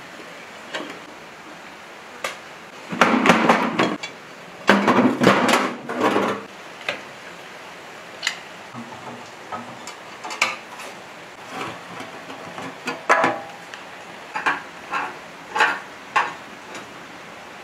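Metal hand tools clinking and knocking on an old diesel engine as it is taken apart: spanners and sockets working bolts loose and being set down. Two longer rattling stretches come about three and five seconds in, then scattered single clinks.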